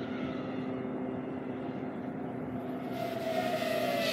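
Racing FPV quadcopter motors whining in flight, a steady mix of tones; about three seconds in a louder, wavering whine comes in over it.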